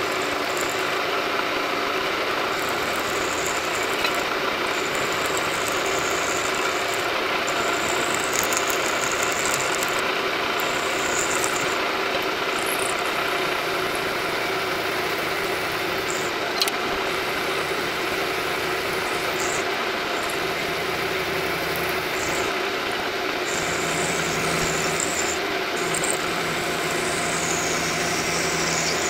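Milling machine running steadily as a custom V-shaped end mill takes a light pass cutting a V slot along a 1144 steel bar, a steady mechanical hum with intermittent high-pitched cutting noise.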